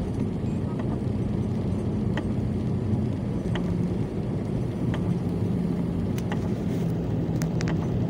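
Steady engine and tyre drone heard inside a moving car on a wet road, with a few faint clicks scattered through it.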